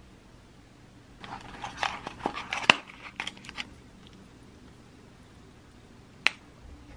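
Hands handling small plastic accessory cases: about two seconds of clicks, taps and rustling, then a single sharp click near the end.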